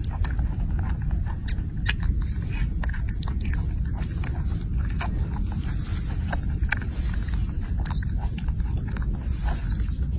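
A baby macaque chewing and smacking on grapes: irregular short sharp clicks over a steady low rumble.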